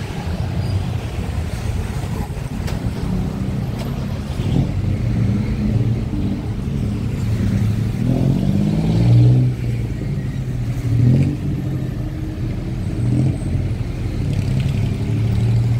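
Road traffic passing on a city street: a steady low engine rumble, with a vehicle accelerating past about halfway through, its engine note rising, and another passing shortly after.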